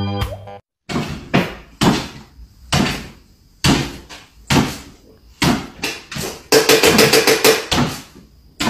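A series of sharp knocks and taps, roughly one a second, with a quick run of rapid taps a little past the middle.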